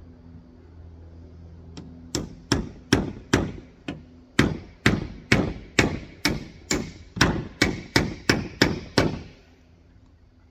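Hammer driving nails through a corrugated PVC roofing sheet into the wooden frame beneath. About seventeen sharp blows come roughly two a second, starting about two seconds in and stopping about a second before the end.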